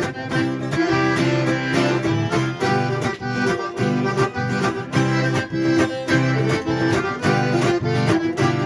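Instrumental break of a sertanejo song: a piano accordion plays the lead over strummed guitar and a steady beat.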